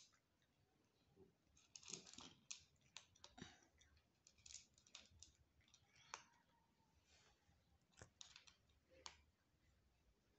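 Faint, irregular crunching clicks of a cat chewing dry cat kibble.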